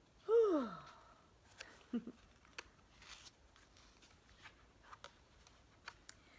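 A woman's exaggerated vocal yawn, one drawn-out 'aah' that rises briefly and then slides down in pitch, about half a second in. After it come a few faint clicks and soft handling noises.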